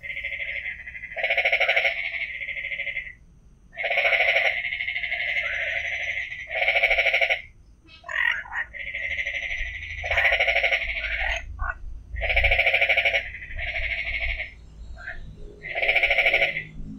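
Frogs calling: a run of rapidly pulsed calls, each about a second long, following one another with short gaps.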